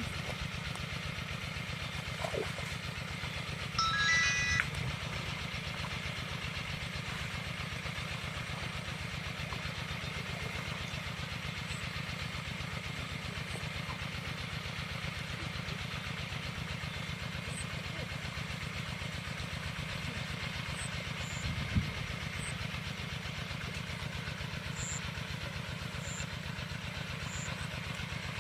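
A small engine running steadily with an even low pulse. A brief high chirp comes about four seconds in, and a single knock comes near the end.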